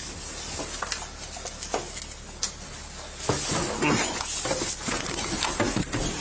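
Scuffle heard through a police body camera: clothing rubbing and brushing against the microphone, with scattered knocks, as officers grapple with a man. It grows louder about three seconds in.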